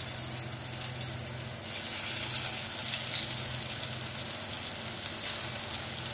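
Boiled potato pieces sizzling in hot mustard oil in a kadai, a steady hiss with crackles and spits as more pieces are dropped in.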